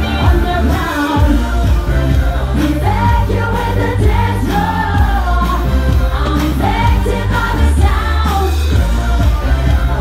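Live dance-pop through a stage PA: a female lead vocal over a steady electronic beat with heavy bass.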